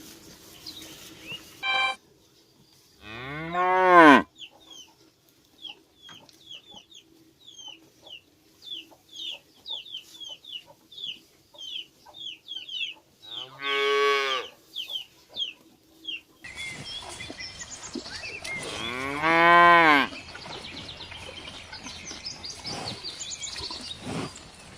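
Cows mooing: three long moos spread over the stretch, each rising then falling in pitch. Between the first two, a string of short high chirps repeats about twice a second.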